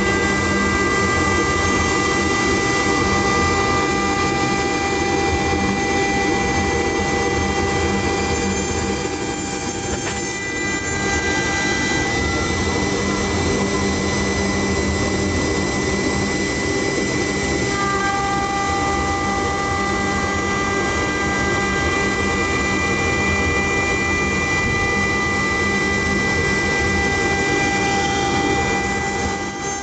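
CNC wood-turning lathe with a rotary router head milling a spiral twist into a wooden baluster: a loud, steady machining noise with a high whine held throughout. Further whining tones drop out about ten seconds in and return about eighteen seconds in.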